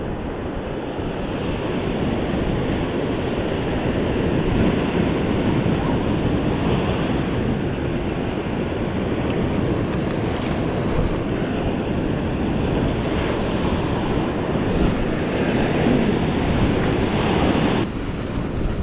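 Ocean surf washing onto the shore, with wind buffeting the microphone; the noise swells and eases and drops off suddenly about a second before the end.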